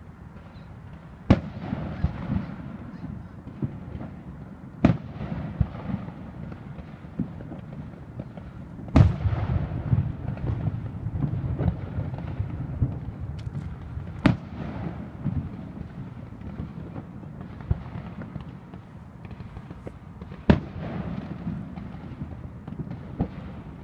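Aerial fireworks display: five loud bangs a few seconds apart, the strongest near the middle, with crackling and rumbling in between.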